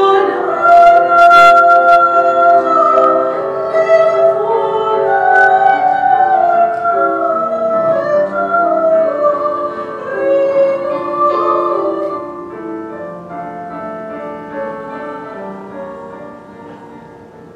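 A church hymn sung with keyboard accompaniment, slow held notes, dying away over the last few seconds.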